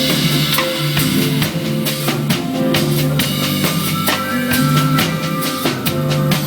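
Drum kit played along with a backing track of band music, with dense drum hits over sustained pitched accompaniment.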